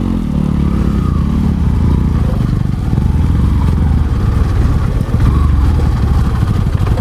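150cc motorcycle engine running steadily in a low gear while riding a slippery, muddy off-road track, getting a little louder partway through.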